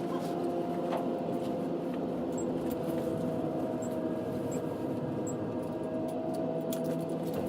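Steady drone of construction machinery running, with several held tones and a few faint ticks over it.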